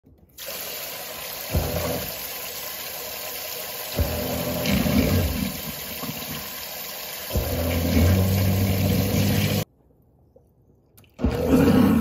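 Tap water running into a kitchen sink while the garbage disposal motor hums, coming on in spells. The whole sound cuts off abruptly about ten seconds in and returns briefly near the end.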